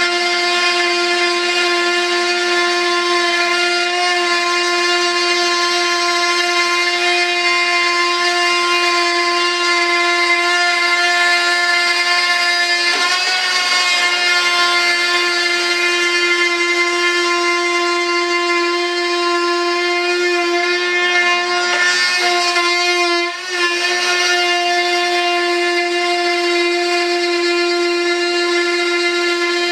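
Handheld rotary tool running at high speed with a steady, high-pitched whine while trimming cured fibreglass. Its pitch wavers briefly twice, a little before halfway and again about three-quarters of the way through.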